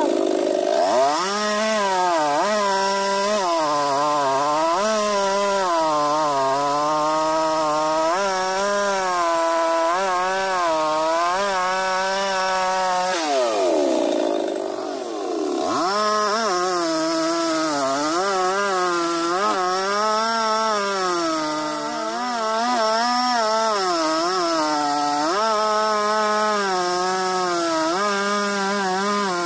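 Large two-stroke chainsaw cutting into a tree trunk, its engine note dropping and wavering as it bogs under load in the wood. About halfway through it revs up high out of the cut for a couple of seconds, then settles back down into the cut.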